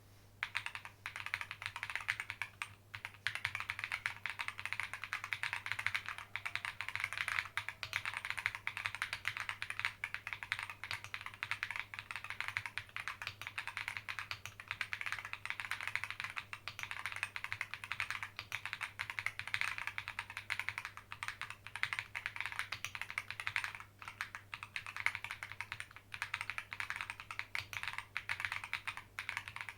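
Clacky typing on the alpha keys of a Monsgeek M1 mechanical keyboard with a polycarbonate plate, factory-lubed Dreamland tactile switches, PBT keycaps and a tape mod. Keystrokes come in a fast, continuous stream that starts about a second in, with brief pauses near the start and near the end.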